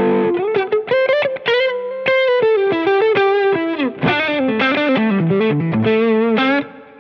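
Umeda UST QM24 electric guitar through overdrive on its neck pickup. A held chord rings for a moment, then a fast single-note lead line follows, with string bends and vibrato. It stops near the end.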